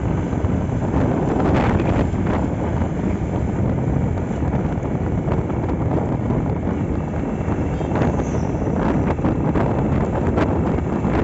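Wind rushing over the microphone on a moving Honda Astrea Grand motorcycle, with the small single-cylinder engine running steadily underneath on a test ride after its restoration.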